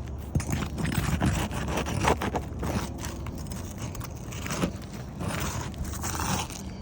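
Irregular scraping and clicking of a tool being worked under asphalt shingles, prying at a shingle whose mat sticks to the tab.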